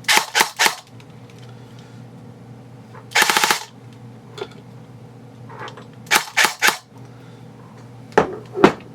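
Airsoft gun firing several short bursts of rapid sharp clacks: three quick bursts at the start, a longer rapid burst about three seconds in, three more around six seconds, and two single cracks near the end.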